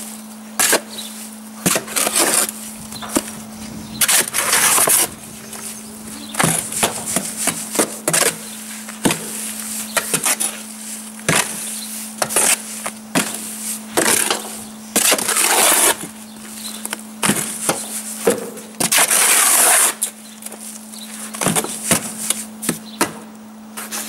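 Shovel hand-mixing wet cement in a steel wheelbarrow: irregular scrapes of the blade through the gritty mix and across the metal tray, with sharp knocks as it hits the sides, a few scrapes drawn out to about a second.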